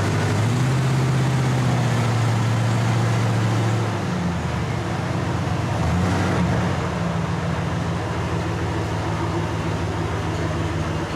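Loud engine of a 1989 Ford F-150 with a cut-off exhaust, revved hard while the truck barely moves. The pitch climbs about half a second in, sags around four seconds, and rises again near six seconds. The truck won't move because its transmission fluid is low.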